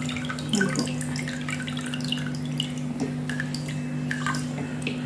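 Soy sauce glugging out of an upturned bottle into a stainless-steel pot of sugared water: a continuous run of quick, bubbly plops and drips. A steady low hum sits underneath.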